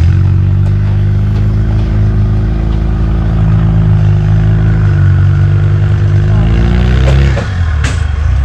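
Rock crawler buggy's engine held at high revs as it climbs over boulders. The pitch shifts about halfway through, falls away briefly near the end and picks up again, with a sharp crack just before it picks up.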